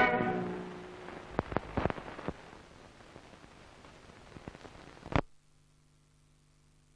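The last of the trailer's orchestral music dies away, then an old 16mm film optical soundtrack runs on black leader: a hiss with scattered crackles and pops, ending in a sharp pop about five seconds in. After the pop the hiss cuts off, leaving only a faint low hum.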